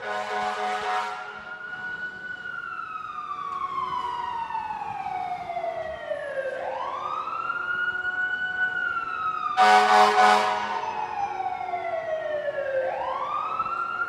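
Fire truck siren wailing in slow cycles, each rising quickly and then falling slowly over several seconds. Loud blasts of the truck's horn cut in at the start and again about ten seconds in.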